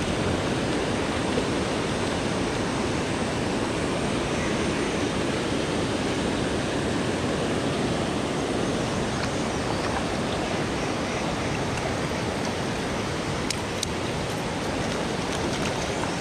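Fast mountain river rushing steadily over boulders, with a few faint clicks near the end.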